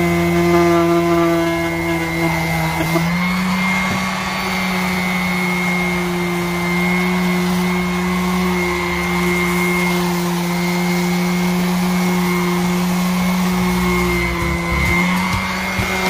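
Tackife random orbital sander running steadily, sanding old flaking paint off a wooden garage door: a constant motor whine whose pitch shifts slightly about three seconds in.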